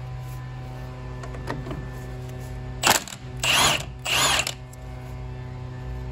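Cordless impact wrench on a 19 mm socket, run in three short bursts to loosen a bolt: a brief blip about three seconds in, then two half-second runs of hammering.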